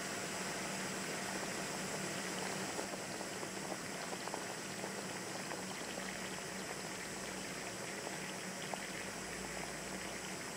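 Water boiling in a paper cup heated by a kitchen blow torch, a busy irregular bubbling and crackling over the steady hiss of the torch flame.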